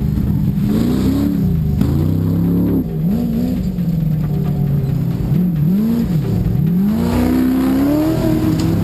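Desert racing trophy truck engine revving hard, its pitch climbing and dropping several times, then one long climb near the end.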